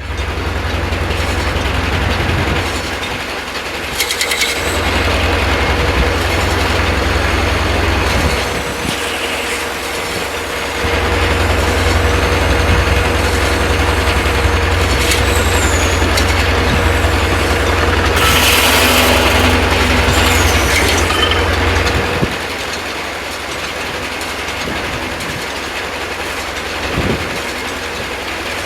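Corley 395 circular sawmill running under power, with the drive engine's low steady hum and the mill's pulleys and gears turning, and a level tone through most of it. It dips for a few seconds partway through and drops to a quieter run about 22 seconds in.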